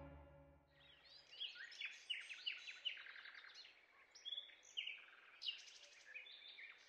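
Faint outdoor ambience with scattered short bird chirps, starting about a second and a half in, after a music tail fades out.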